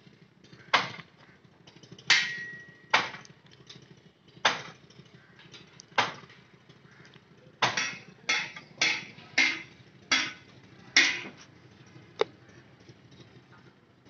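Sharp metallic knocks like hammer blows, about a dozen at uneven spacing, closer together through the second half, one of them ringing briefly.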